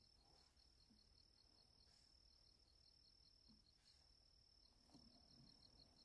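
Faint chorus of field insects such as crickets calling: one high continuous trill with brief breaks, and under it a second insect chirping in an even pulse about five times a second.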